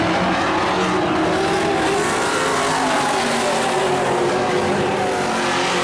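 A field of dirt-track stock pickup race trucks running together, several engines loud at once, their pitches drifting up and down as the trucks go by.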